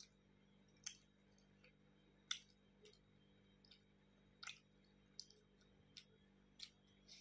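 A person chewing roti and vegetable curry with faint wet mouth clicks and smacks, about one every second, over near silence.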